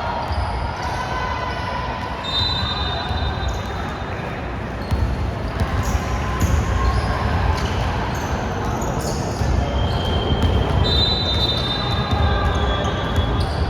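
A basketball game in play: a ball bouncing and players' feet on the court, with a few short high squeaks.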